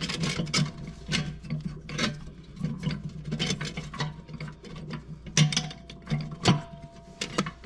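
Oil-soaked friction clutch plates and steel plates being set one by one into the low-reverse clutch pack of a 200-4R automatic transmission, clicking and clinking irregularly as they seat. A few of the steel plates ring briefly after a click, most clearly in the last two seconds.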